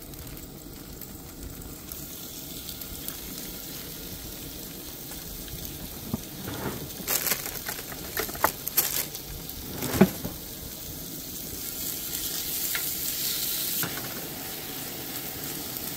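Fajita meat and vegetables frying in oil in a cast-iron skillet, sizzling steadily. From about six to ten seconds in, a utensil scrapes and clinks against the pan as the food is stirred, and the sizzle grows louder toward the end.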